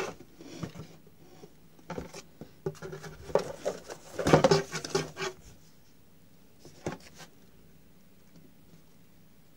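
Plastic wrap and foam packing sheets rustling and crinkling as they are handled inside a cardboard box, in irregular bursts that are loudest about four to five seconds in. The last few seconds are quiet but for a single light knock near the seven-second mark.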